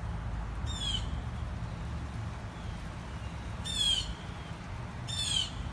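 Three short, harsh, high-pitched bird squawks: one about a second in, then two more near the end, about a second and a half apart, over a steady low rumble.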